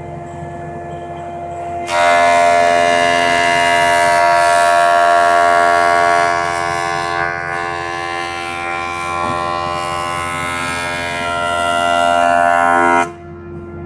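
MP410A combined planer thicknesser running free. About two seconds in, a board meets the cutterhead and a loud, whining cutting noise starts, with a steady high-pitched tone in it. It eases a little midway, then rises again and cuts off suddenly near the end as the board clears, leaving the machine running empty.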